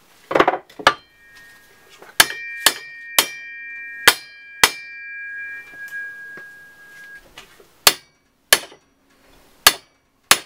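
Sharp metallic knocks as a Holden Commodore tailshaft is tapped to seat its new centre bearing fully: about ten strikes in two groups. During the first group the shaft rings on with a clear note of several tones for a few seconds.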